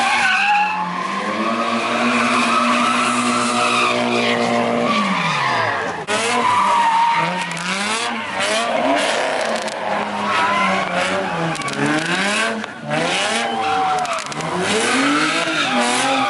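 A car engine held at high revs with tyres screeching, then dropping and revving up and down over and over while the tyres keep squealing, as in burnouts or donuts.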